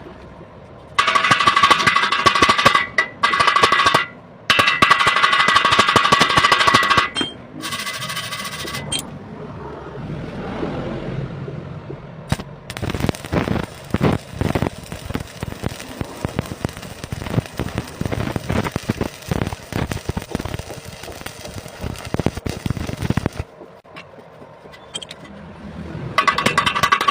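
Arc welding: the electric arc crackling and sputtering in irregular runs of sharp ticks. Louder passages, broken by short pauses, carry a steady whine along with the hiss.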